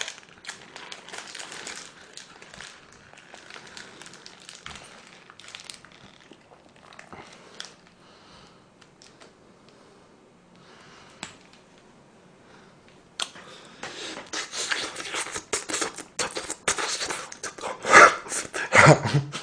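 Close-miked eating sounds: a paper-wrapped mozzarella burger being pulled apart and eaten, with wrapper crinkling and chewing. The small crackles thin out in the middle, then grow denser and louder over the last six seconds as he bites in.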